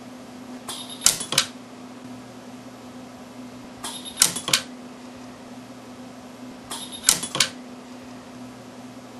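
Orion micro TIG jewelry welder firing three welds about three seconds apart as a white gold head is welded onto a ring band. Each weld is a brief hiss followed by two sharp snaps. A steady low hum runs underneath.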